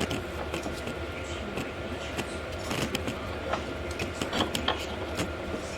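Scattered light clicks and knocks of hand work on a car's rear suspension and axle, irregular and close together, over a steady low hum.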